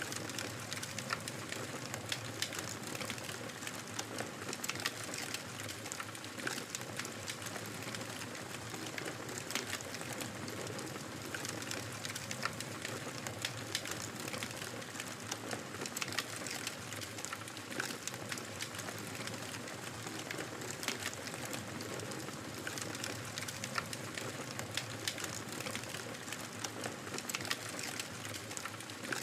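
Fire in a fireplace crackling: a steady soft hiss broken by many sharp, irregular pops and snaps.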